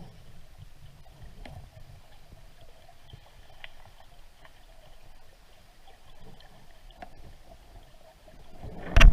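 Small boat on the water with a quiet low rumble and a few faint knocks. Near the end a loud noise starts suddenly.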